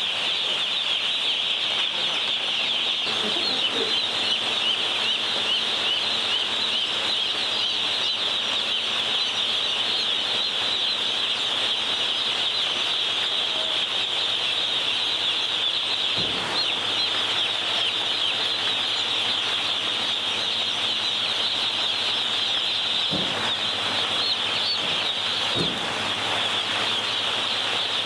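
A huge flock of day-old broiler chicks peeping all at once, a dense, steady, high-pitched chorus with no let-up. A few faint knocks come through in the second half.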